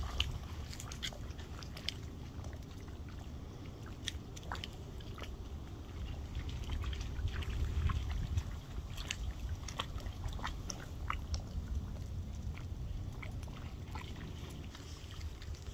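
Wind rumbling on the microphone, with irregular faint clicks and ticks scattered throughout.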